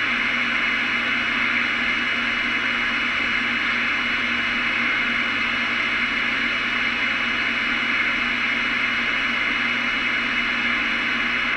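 CB radio receiver putting out steady static hiss, limited to the range of a small radio speaker, with a faint steady tone under it. The noise is unbroken and holds one level throughout, typical of an open channel with no station transmitting.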